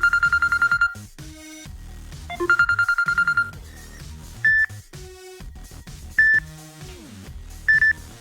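Samsung Galaxy S9 ringtone playing, an electronic tune. A fast pulsing tone lasts about a second and comes twice, then three short higher beeps come about a second and a half apart, over a soft backing.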